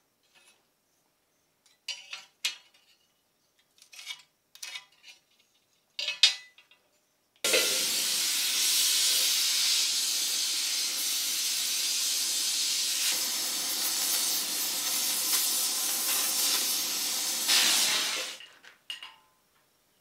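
Oxy-fuel gas torch flame hissing steadily for about ten seconds while it heats a marked spot on a flat steel bar for bending. It starts suddenly about halfway through and fades out near the end, after a few light clicks and taps from working the bar.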